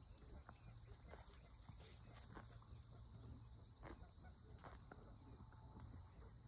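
Near silence: a faint, steady, high insect trill, with a few soft ticks scattered through it.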